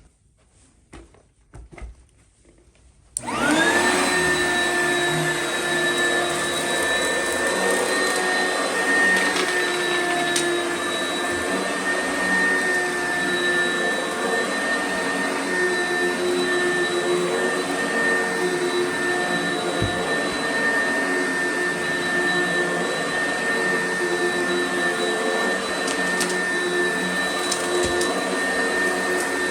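Oreck XL upright vacuum cleaner switched on about three seconds in: its motor spins up within half a second and then runs at a steady high whine. A few faint knocks come before it starts.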